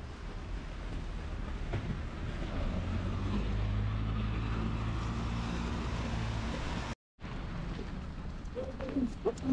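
Bus engine running with a steady low hum as it passes on a wet street, over a steady hiss. The sound cuts out abruptly for a moment about seven seconds in.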